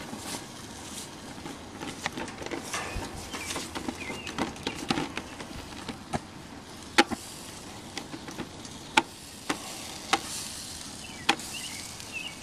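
A basting brush spreading barbecue sauce over a paper poster on a grill grate: soft, uneven wet brushing strokes. About halfway in, a series of separate sharp clicks begins.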